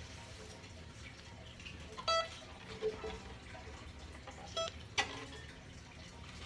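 Handling noise as one mandolin is set down and another picked up: soft knocks and rustles, with strings briefly pinging when bumped, about two seconds in and again just before a sharper click near the end.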